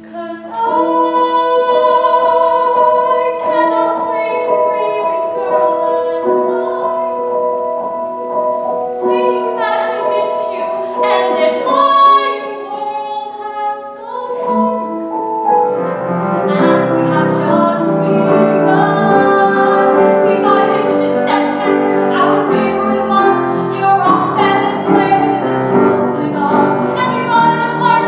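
A woman singing a musical-theatre song with grand piano accompaniment, on long held notes. About halfway through, the sound grows fuller and denser.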